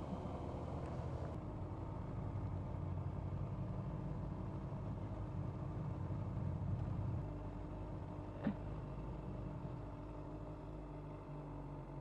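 Honda CBR600RR's inline-four engine running at low revs as the bike rolls slowly down a wet pit lane. It is a steady low rumble that eases off about seven seconds in, with a single short click about eight and a half seconds in.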